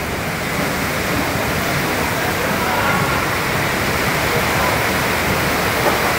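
Torrential rain and storm-force wind in a sudden squall, a steady, dense roar.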